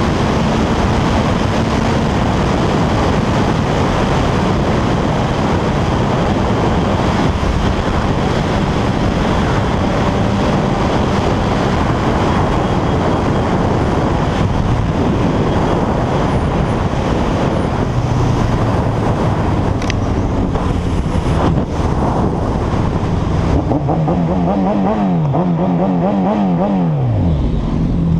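Motorcycle riding at highway speed, heard from a helmet camera: loud, steady wind rush with the engine running underneath. Near the end the engine note swoops up and down in pitch several times, then drops away.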